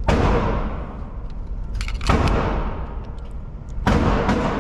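Three gunshots about two seconds apart, each a sharp crack followed by a long echoing decay in an indoor shooting range.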